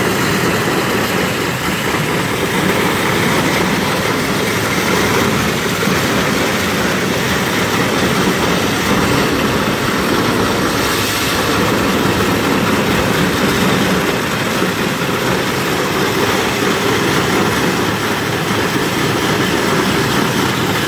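Conjet Robot 327 hydrodemolition robot stripping concrete with a 1050-bar, 100 L/min ultra-high-pressure water jet: a steady, loud rushing noise of the jet and machinery running without a break.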